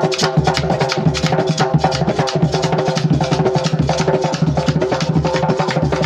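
Music driven by fast hand-drumming, many strokes a second, over a low repeating bass line and sustained notes that change about once a second.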